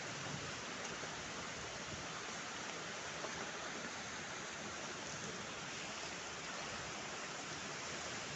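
A steady, unbroken rushing hiss of outdoor noise, even in level throughout, with no distinct events.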